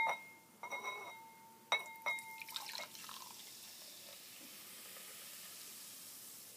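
A ceramic bowl clinks three times in the first two seconds, each with a short ring. Then comes a faint, steady fizzing hiss of Sprite soda in the bowl.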